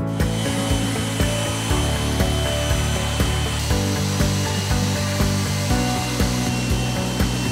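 Corded electric palm sander running against a painted concrete column, a steady sanding hiss, under background music with a steady beat.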